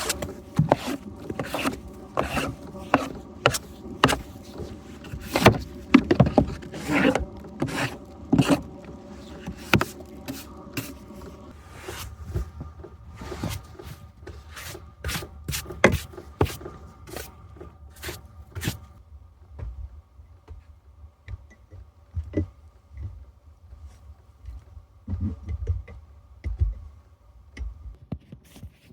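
Irregular knocks, clicks and scrapes of objects being handled, dense at first and thinning out about two-thirds of the way through, over a faint steady hum.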